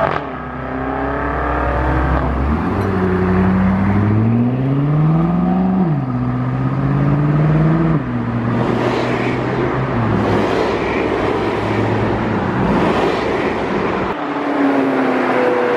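Performance car engine and exhaust accelerating away, the engine note climbing and then dropping sharply twice, as at upshifts. A steadier stretch of engine noise follows, and another car pulls away near the end.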